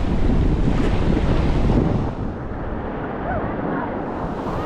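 Rushing whitewater of class III rapids, with water and wind buffeting the microphone in a loud, steady roar. About two seconds in the sound turns duller and a little quieter.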